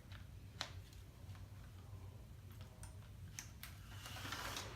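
Pull-string toy helicopter in flight: its spinning rotor gives a faint whir that swells near the end, with a few light scattered ticks over a low steady hum.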